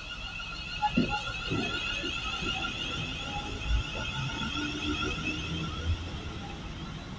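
Class 350 electric multiple unit running slowly into the platform: a steady high-pitched whine over a low rumble, with a few dull thuds from the wheels.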